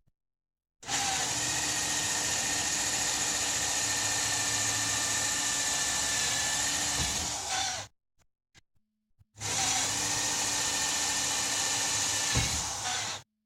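Electric drill running steadily with a whine, drilling drainage holes in a PVC window frame: one long run of about seven seconds, then a shorter one of about four, each cutting off abruptly. A brief knock near the end of the second run.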